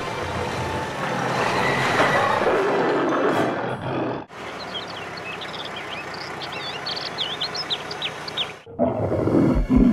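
A rough, animal-like roar that swells over noise, then after a sudden cut many short high chirps over a steady hiss; music starts near the end.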